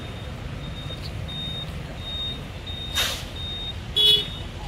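Traffic in a jam: a steady low engine rumble with a high beep repeating about every two-thirds of a second, like a reversing alarm. There is a short hiss about three seconds in, and a short horn honk, the loudest sound, near the end.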